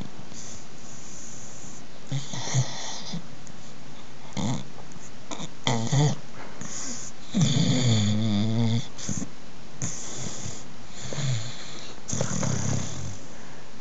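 Sleeping American Staffordshire terrier snoring, one breath every second or two. A longer snore with a wavering pitch comes a little past halfway and is the loudest.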